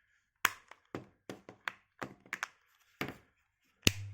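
Plastic TV remote control casing being pressed and snapped back together by hand: a string of sharp, irregular plastic clicks and knocks, the loudest near the end.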